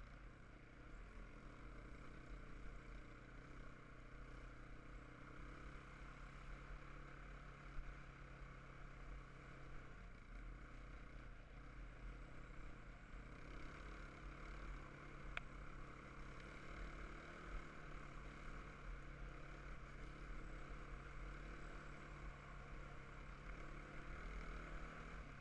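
Single-cylinder four-stroke quad bike engine running at a steady cruise, the note dipping slightly about ten seconds in, over a low rumble of wind on the microphone. A single sharp click comes about fifteen seconds in.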